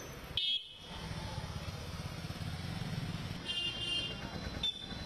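Street traffic: a vehicle engine running with a low rumble, and short high-pitched horn toots about half a second in, again around three and a half seconds, and once more near the end.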